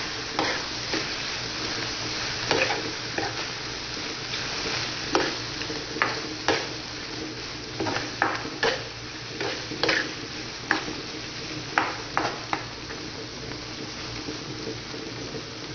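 Chopped pork innards and tomato salsa sizzling steadily in a frying pan, while a metal spatula stirs and scrapes against the pan with irregular clacks.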